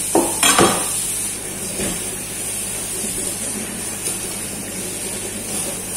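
Kitchen tap running steadily into a stainless-steel sink as raw chicken is rinsed under the stream, with two short knocks about half a second in.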